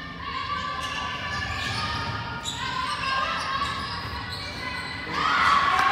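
Basketball game in a gym: the ball bouncing on the court amid voices of players and spectators, growing louder about five seconds in.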